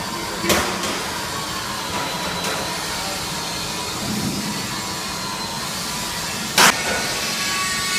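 Vacuum homogenizer mixer machine running with a steady mechanical hum and hiss. Two sharp knocks cut through it, one shortly after the start and a louder one near the end.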